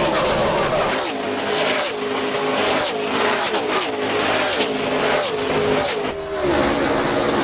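NASCAR Cup Series V8 stock cars at racing speed, one engine note after another falling in pitch as a line of cars runs by, about one a second.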